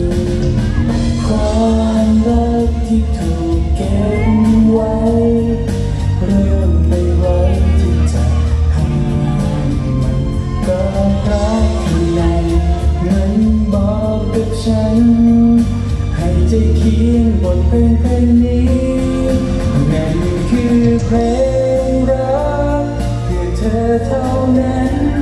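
A man singing a song live into a handheld microphone over a recorded backing track with a strong bass line.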